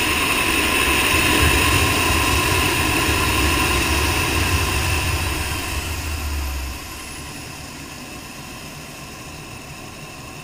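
Radio-controlled scale Hughes 500E helicopter hovering and touching down on its pad: a steady high whine over a low rotor beat. About seven seconds in the low beat stops and the sound falls sharply as the power comes off, leaving a fainter whine with a thin falling tone.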